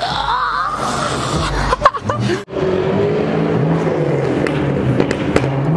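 Car engine and road noise heard from inside the cabin while driving, its low pitch drifting slowly. It takes over about halfway through, after a short stretch of outdoor sound with one sharp knock.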